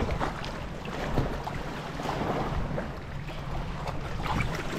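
Shallow seawater splashing and sloshing as people wade and handle a floated fishing net in it, with wind rumbling on the microphone.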